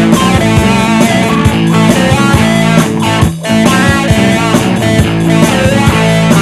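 Background music: an instrumental break in a guitar-led song, with plucked guitar over a steady backing.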